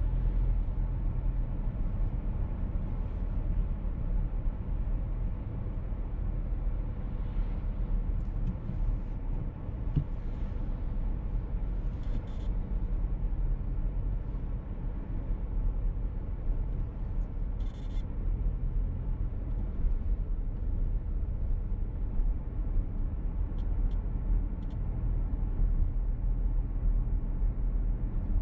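Steady road and engine rumble heard inside the cabin of a VW T-Roc petrol car driving along. A few faint, brief high-pitched noises come through near the middle.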